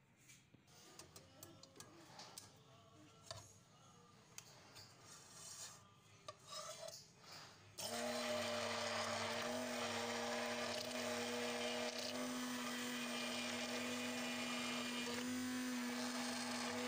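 Faint clicks, then about halfway through an electric immersion hand blender switches on and runs steadily at one pitch in a stainless steel pot, beating raw eggs toward a froth.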